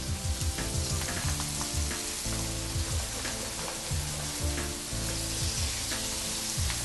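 Floured whitebait and chopped onion frying in a pan of hot oil, a continuous sizzle with scattered crackles as more handfuls are dropped in.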